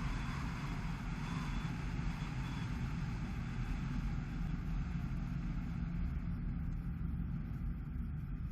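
Dacia Sandero Stepway driving on a wet road: a steady low rumble with tyre hiss that fades over the second half.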